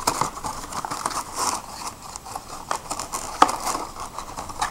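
Cardboard fireworks boxes and packs being handled by hand: rustling, light taps and scrapes of packaging, with one sharper click about three and a half seconds in.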